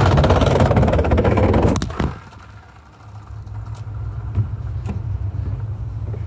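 Skateboard wheels rolling over a wooden plank bridge deck, a loud rumble full of rapid clacks as they cross the board gaps, ending about two seconds in with a sharp knock. After that a low steady rumble with a few light knocks.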